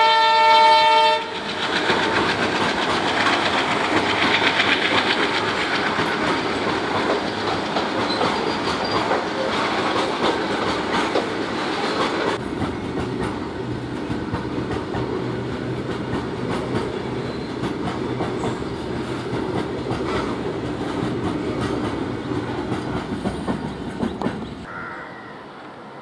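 Diesel locomotive horn sounding a multi-tone chord that cuts off about a second in, then a long train of BCNA covered freight wagons rolling past, wheels clattering over rail joints with a steady rattle. The sound drops away suddenly a little before the end.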